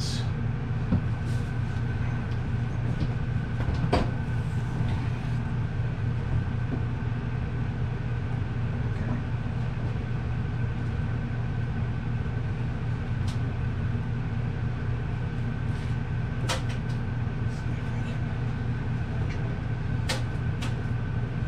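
Steady low machine hum with a faint steady high whine, broken a few times by sharp knocks and clunks as an over-the-range microwave is lifted and test-fitted into its cabinet opening.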